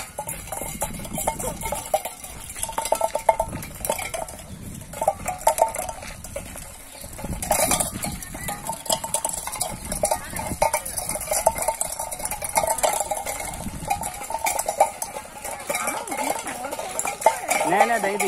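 Metal wheelbarrow rattling and clanking as it is pushed over a bumpy dirt track, an irregular run of clicks and knocks.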